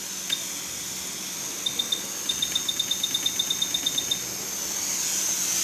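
Quick 861DW hot air rework station with its airflow hissing steadily, while its control buttons beep as the temperature is set: a single beep, then three quick ones, then a rapid run of about ten beeps a second as the button is held, stopping about four seconds in.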